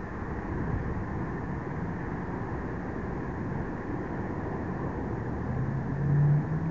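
Steady wind noise on the microphone over open water in a strong breeze. About five and a half seconds in, a low hum joins it and rises slightly in pitch.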